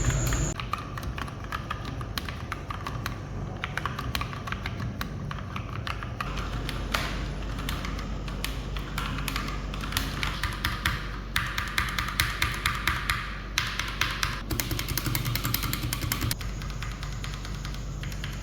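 Typing on a Glorious GMMK TKL mechanical keyboard with an aluminium case: a continuous run of keystroke clicks, at its fastest and densest about two-thirds of the way in, over soft background music.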